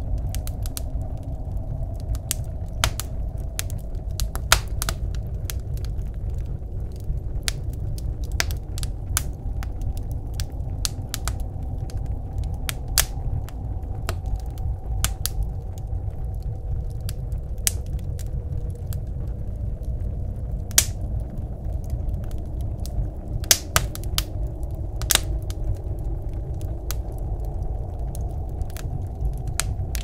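Wood fire crackling in a wood stove, with irregular sharp pops, a few of them louder, over a steady low rumble of blizzard wind.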